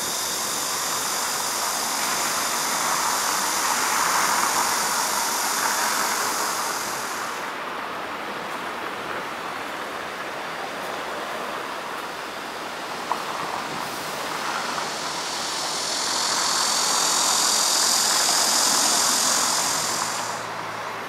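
Road traffic running steadily, swelling twice as vehicles pass. Over it a high steady buzz cuts off suddenly about seven seconds in and comes back near the end.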